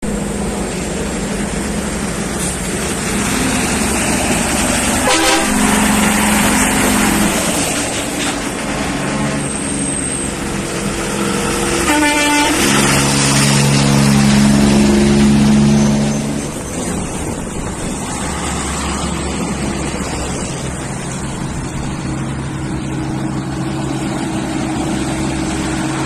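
American semi-trucks passing close by, their diesel engines and tyres loud. Air horns sound in held chords, briefly about five seconds in and longer from about twelve to sixteen seconds in, the loudest part.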